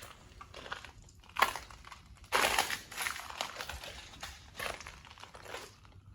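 Footsteps crunching over loose debris on a floor, in uneven steps, the loudest stretch about two seconds in.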